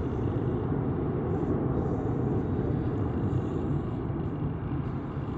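Boeing E-3A Sentry AWACS climbing away after takeoff, its four Pratt & Whitney TF33 turbofans making a steady low jet rumble that slowly fades.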